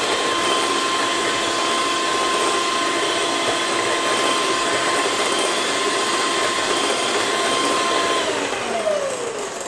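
Handheld electric mixer beating eggs and sugar in a bowl, its motor running with a steady whine. About eight seconds in it is switched off and the whine falls in pitch as the motor winds down.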